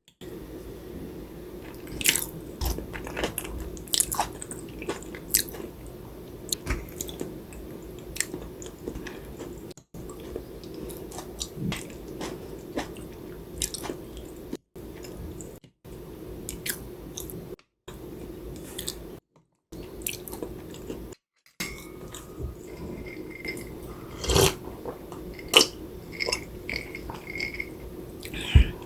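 Close-up eating sounds: chewing and biting, with scattered sharp clicks of utensils against dishes and a few brief ringing clinks near the end, over a steady low hum. The sound drops out briefly several times where it is cut.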